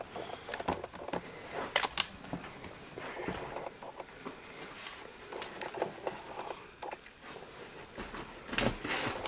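Faint, irregular small clicks and knocks of someone walking and handling a camera in a small cluttered room, with a couple of sharper clicks about two seconds in.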